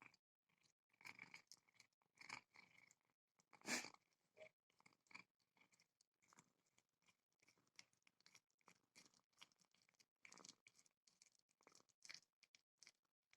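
Domestic cat purring faintly, with irregular soft clicks and rustles, one louder click about four seconds in.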